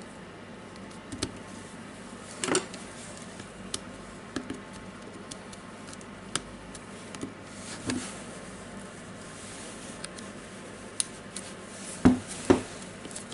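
Scattered light clicks and knocks of plastic power-drill parts being handled and fitted together during reassembly, with two louder knocks near the end.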